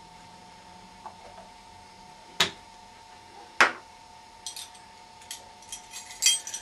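A metal teaspoon and small plastic additive tubs being handled: two sharp knocks a little over a second apart, then a run of light clicks and clinks over the last couple of seconds, over a faint steady hum.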